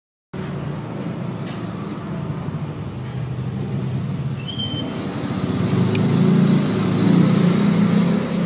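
A motor vehicle engine running steadily, getting louder about halfway through, with a couple of light clicks over it.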